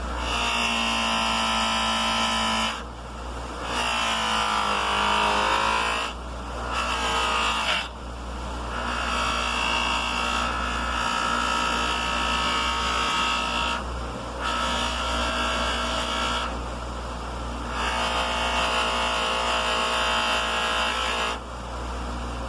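Motor-driven fiber buffing wheel running steadily while a steel hammer head is polished on it with compound. The head is pressed on in about six passes, each adding a loud whine that wavers in pitch and drops away in the brief gaps between them.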